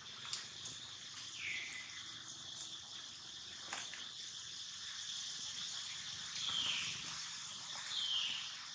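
Steady high-pitched insect drone, broken by three short high calls that each fall in pitch: about a second and a half in, at six and a half seconds, and near the end. A few faint clicks are also heard.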